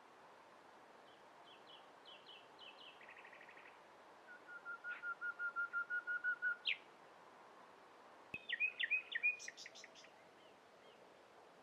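Common nightingale singing in separate phrases: a few short notes and a fast trill, then a run of about a dozen repeated whistled notes that grow louder and end in a sharp upward note, then a quick burst of high notes. A faint steady hiss lies under the song.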